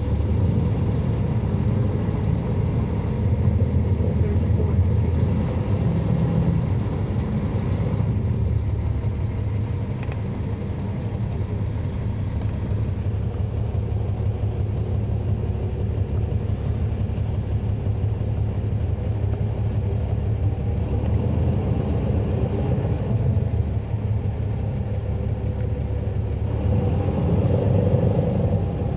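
Caterpillar C13 inline-six diesel engine of a NABI 40-foot transit bus running while the bus is under way, heard from the rear seats inside the cabin as a steady low rumble. It swells a few seconds in and again near the end.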